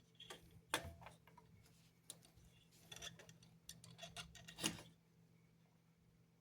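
Faint, scattered small clicks and taps of hand work with a small screwdriver on a plastic model locomotive, two of them sharper, about a second in and near five seconds in.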